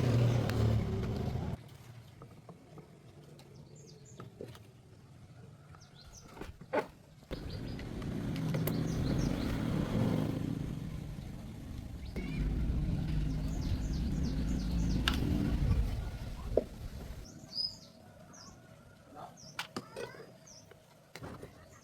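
A small engine runs in three separate stretches, each stopping abruptly, with a few sharp clicks in between. Birds chirp in the last few seconds.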